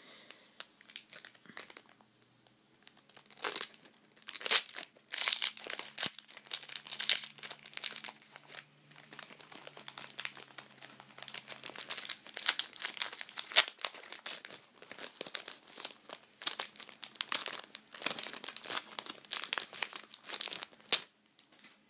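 Foil booster-pack wrapper crinkling and tearing as it is worked open by hand, in irregular bursts of crackling.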